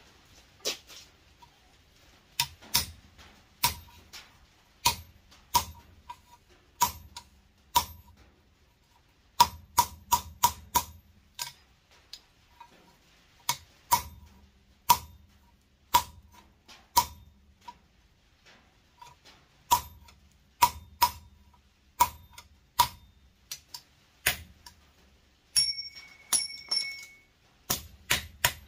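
Hand hammer striking a drift punch through a red-hot tong blank over the anvil's pritchel hole, opening the rivet hole: many sharp, ringing metal strikes at an uneven pace, sometimes several in quick succession. A short steady ring sounds near the end.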